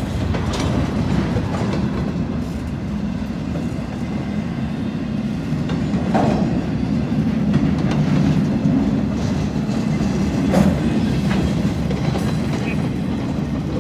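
Freight train of flat cars rolling past: a steady rumble of steel wheels on rail, with a few sharp clacks as wheels cross rail joints.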